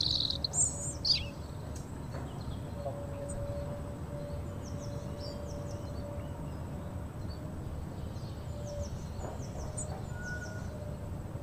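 Outdoor ambience of birds: a few loud quick chirps in the first second or so, then scattered faint high chirps, over a steady low background noise.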